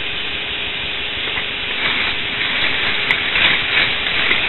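K'nex roller coaster's battery-driven chain lift running, a steady rattling hiss with a faint hum underneath that grows a little louder in the second half.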